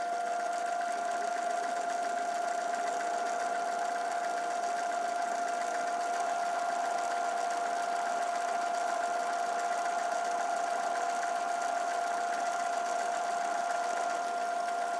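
1936 Atlas 12-inch metal lathe running in back gear at its slowest speed while a parting tool is fed into the spinning stock: a steady mechanical whine holding one constant tone.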